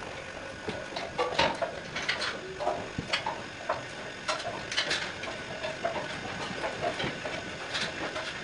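Dairymaster swing-over milking parlour running: a steady machine hum with clicks and short hisses at uneven intervals.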